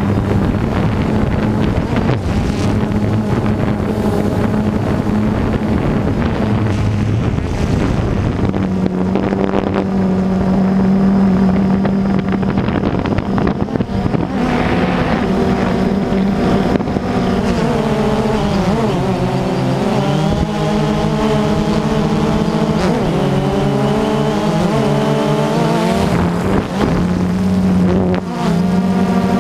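A farm machine's engine running steadily, its pitch dipping and rising several times in the second half as the load or throttle changes.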